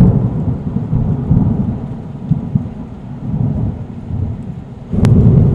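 Deep rolling rumble of thunder that fades mid-way and swells again about five seconds in, with a sharp crack at that point.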